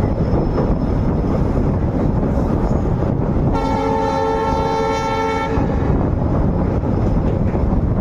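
Train horn of a WDP4B diesel locomotive sounding one steady blast of about two seconds, a little past a third of the way in, over the continuous rushing noise of the train running.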